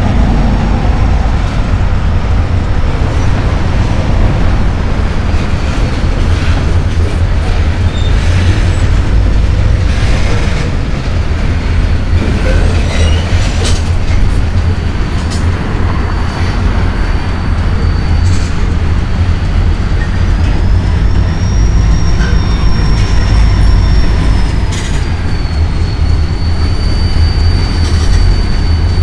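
CSX freight train of enclosed autorack cars rolling past close by: a heavy steady rumble of wheels on rail with scattered clicks at the rail joints. From about halfway a thin high wheel squeal sets in, rising in pitch briefly and then settling back.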